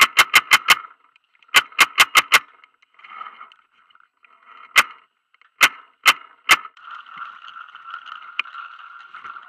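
Semi-automatic paintball marker firing: two rapid strings of about five or six shots each, then four single shots over the next few seconds. A steady background hiss fills the last few seconds.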